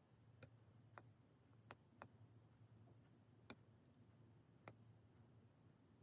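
Faint, sharp single clicks, about six spread unevenly over a few seconds, over a low steady room hum.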